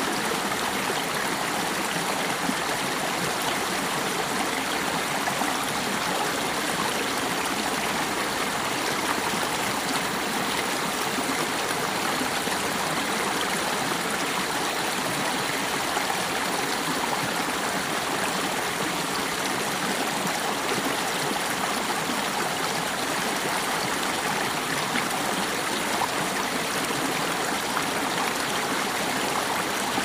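Steady rush of running water, like a stream flowing, even and unbroken throughout, with no bird calls heard.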